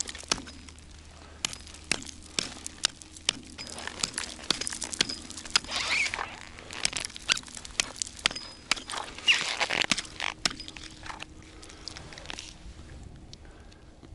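Small hatchet chopping river ice to reopen an ice-fishing hole that has frozen over. Many sharp strikes come with ice cracking and chips scattering, and a few heavier crunching blows fall around the middle. The strikes die away shortly before the end.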